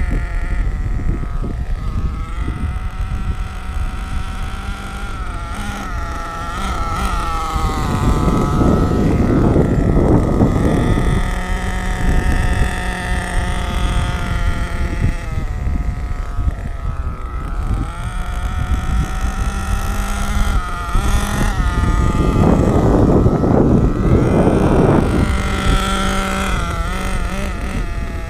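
HPI Savage X 4.6 nitro RC truck's 4.6 cc two-stroke glow engine running, its pitch rising and falling as the throttle is worked. Two louder, noisier rushes last a few seconds each, one about 8 seconds in and one about 22 seconds in.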